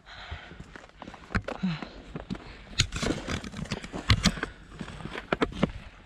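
Footsteps on a steep trail of loose rock: irregular crunches and sharp clacks of boots and stones, several louder knocks about three and four seconds in.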